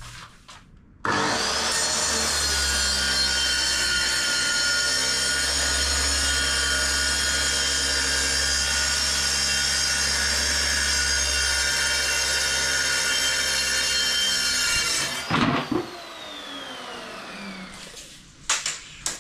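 Plunge-cut track saw running along its guide rail through a sheet of plywood, a loud steady whine with the blade cutting. Near the end it switches off and the blade winds down with a falling whine.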